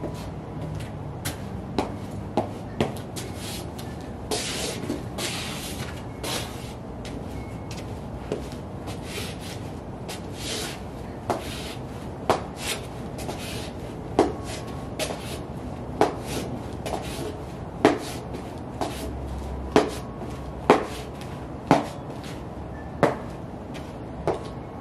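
UGG sheepskin boots tapping and scuffing on a concrete floor: sharp taps of the soles about once a second, growing louder in the second half, with a couple of longer scrapes, over a steady background hiss.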